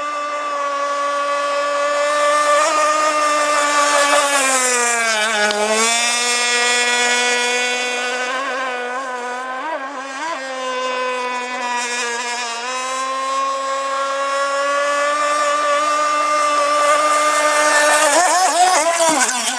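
Radio-controlled racing hot rod boat running flat out, its motor giving a steady high-pitched note. The note sags in pitch about four to six seconds in and climbs back, and near the end it wavers rapidly up and down.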